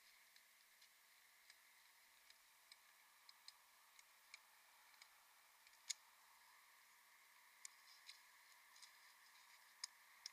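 Near silence: a faint hiss with scattered small clicks and ticks at irregular intervals, the sharpest about six seconds in.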